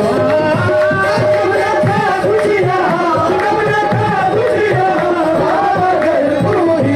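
Live qawwali music: tabla drumming under a wavering, ornamented melody, played steadily without a break.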